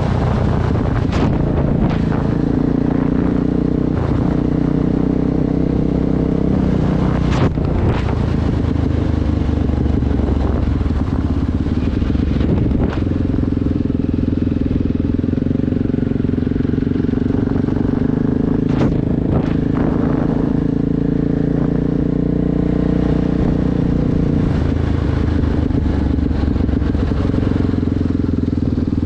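ATV engine running steadily under way, its pitch shifting a little with the throttle, with a few sharp knocks as it crosses the rutted dirt road.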